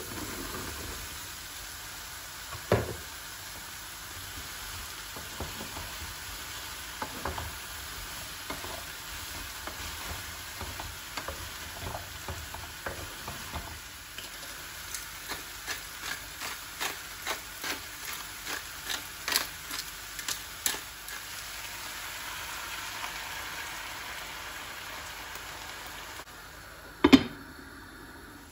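Food sizzling in a frying pan while being stirred, with a utensil clicking against the pan about twice a second for several seconds midway. A knock comes a few seconds in and a louder one near the end, after which the sizzle fades.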